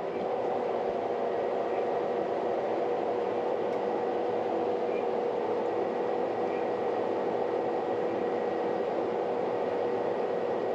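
John Deere combine harvester running steadily, heard from inside the cab: an even hum with a constant tone.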